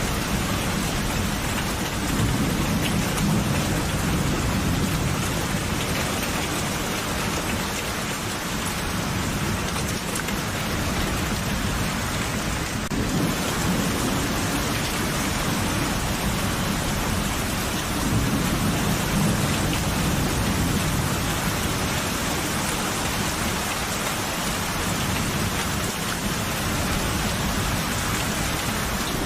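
Steady rain falling, with low rolling thunder that swells twice: a few seconds in and again past the middle.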